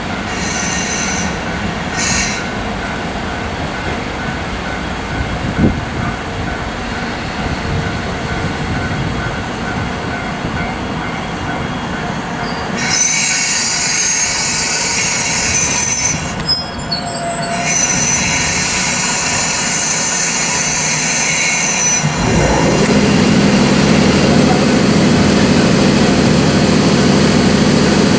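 Double-headed EF64 electric locomotives on a freight train creeping in to a stop, wheels and brakes squealing over a loud hiss of air. About 22 seconds in, the locomotives' cooling blowers start up into a steady low hum that keeps running.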